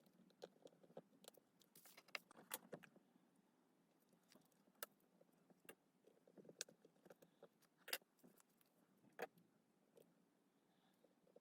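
Faint, scattered sharp clicks and taps with bits of light scraping from small tools and parts being handled while a Samsung Galaxy S8 phone is reassembled.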